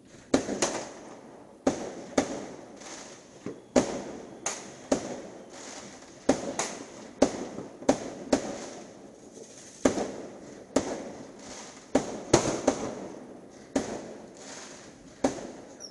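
Fireworks going off: a string of sharp bangs at irregular intervals, about one or two a second, each trailing off briefly.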